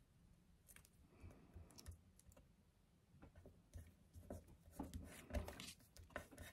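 Faint rustling and light taps of a paper embellishment being handled and pressed flat by hand on a craft mat, busier in the second half.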